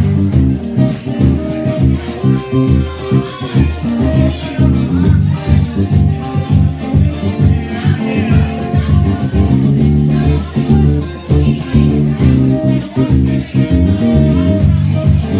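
Live band playing an instrumental passage of a blues song: a steady drum beat under bass guitar and electric guitar.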